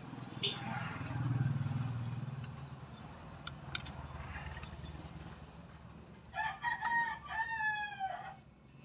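A rooster crows once near the end, in several short notes that close with a long falling one. Under it runs a low, steady engine hum that swells about a second in.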